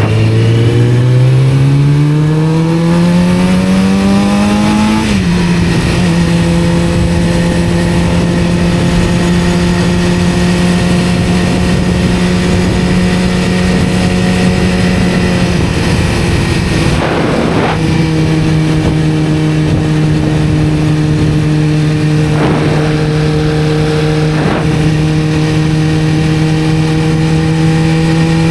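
1991 Kawasaki ZZR-400's inline-four engine on the move, its pitch rising as it accelerates for about five seconds, then dropping sharply at an upshift and holding nearly steady at cruise. Wind rushes over the microphone underneath.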